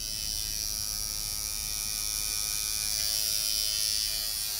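Electric tattoo machine buzzing steadily as it runs.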